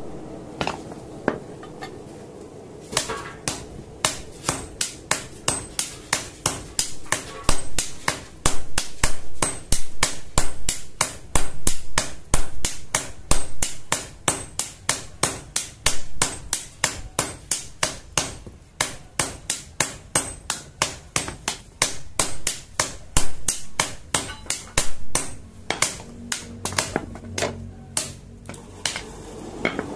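Blacksmith's hammer striking the iron blank of a tobacco-chopping machine blade on an anvil: a long, steady run of sharp blows, about two to three a second, with a couple of brief pauses.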